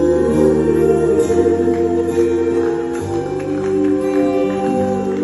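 Live ballad band music between sung lines: held chords from keyboards and strings, changing about three seconds in.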